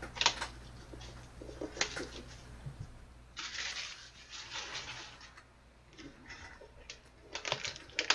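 Hands handling and opening a cardboard trading-card box: scattered clicks and taps, a rustling scrape starting a little over three seconds in and lasting about a second and a half, then more clicks and taps near the end as the lid comes off.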